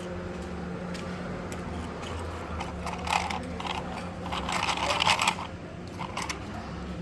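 Small diecast toy construction vehicles being handled: scattered clicks, then a cluster of rattling and scraping from about three to five seconds in, over a steady low hum.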